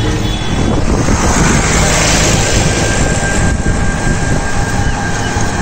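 Steady rush of wind and road noise from riding in a moving electric rickshaw (toto), heaviest in the low rumble, with a faint steady high whine from about three seconds in.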